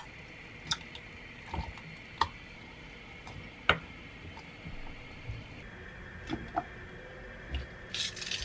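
Fish cakes and mushrooms scraped from small bowls into a pot of broth: a string of light clinks of a utensil against bowl and pot, with soft plops. Near the end, a rustle as chopped cabbage is dropped in by hand.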